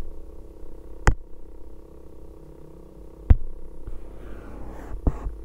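Steady low electrical hum, with two sharp clicks, one about a second in and one about three seconds in.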